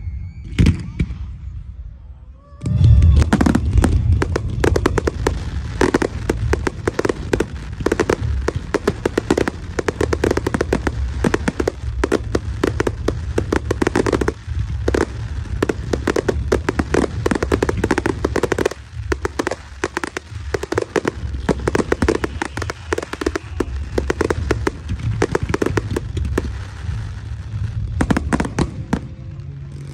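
Fireworks display: a few single bangs, a short lull, then from about three seconds in a dense, rapid barrage of launches and bursting shells that keeps going until near the end.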